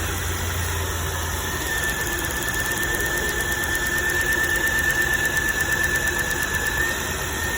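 2006 Chevrolet Impala engine running under the hood, with a steady high-pitched whine over it throughout and a rhythmic pulsing in loudness in the middle seconds.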